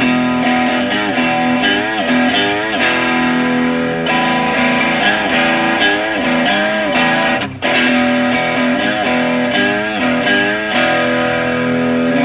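Fender ST54-95LS Stratocaster on its rear (bridge) pickup through a Boss SD-1 Super OverDrive, with the mid booster off, playing overdriven rock chords with bent notes over sustained ringing notes, briefly breaking off near the middle. This is the edgy rock tone of the bridge pickup.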